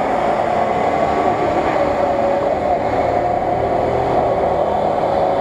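Off-road 4x4's engine running steadily under load as it wades through deep muddy water.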